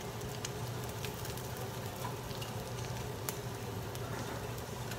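Chicken wings sizzling in hot oil in a frying pan during their second fry (double-frying for crunch): a steady hiss with scattered sharp ticks.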